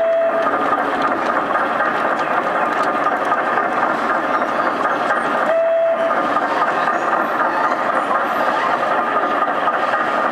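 Scratch-built model steam shovel working: a steady mechanical running sound with hiss, and one short single-pitch toot about five and a half seconds in.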